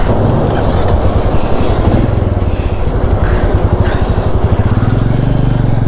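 Royal Enfield Meteor 350's single-cylinder engine running as the motorcycle cruises along the road; the engine note picks up slightly near the end.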